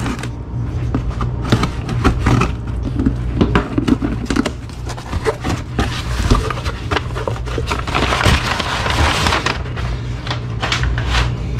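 A cardboard shipping box being opened by hand: flaps scraped and folded back, with short knocks and scrapes throughout and a burst of rustling packing paper about eight seconds in. A steady low hum runs underneath.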